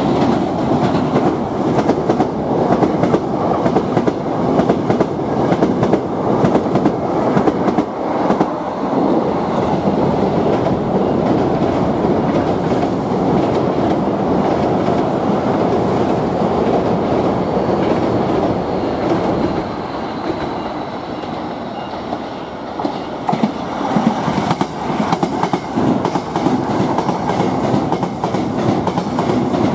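Hankyu electric commuter trains running close past on elevated track, a steady loud rolling noise with wheels clattering over rail joints. It eases briefly about two-thirds through, with a faint high whine, then builds again as another train passes.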